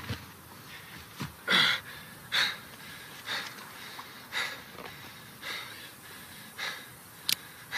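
A man breathing heavily in ragged gasps, roughly one breath a second, with a sharp click near the end.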